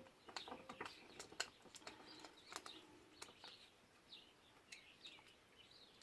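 Faint sharp clicks of small parts and a screwdriver being handled, with small birds chirping in the background.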